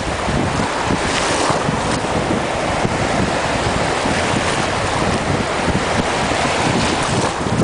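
Wind buffeting the microphone over the rush of water, a steady noise with a restless low rumble and a couple of brief swells of hiss.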